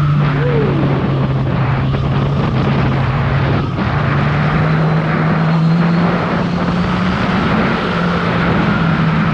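Kawasaki Z1000R's inline-four engine on its stock exhaust running at a steady cruise under way. Its pitch dips briefly about four seconds in, then climbs again, over a steady rush of wind noise.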